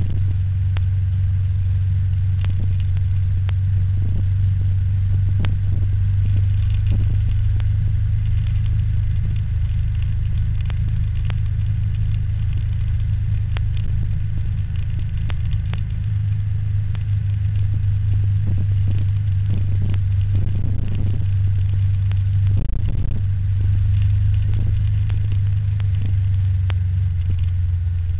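Steady low rumble of a bike ride along the road, with scattered light clicks and knocks.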